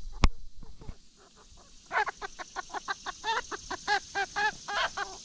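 A chicken squawking in a rapid run of short, repeated calls starting about two seconds in, after a sharp click near the start. These are a pullet's distress squawks as a bullying young rooster goes after her.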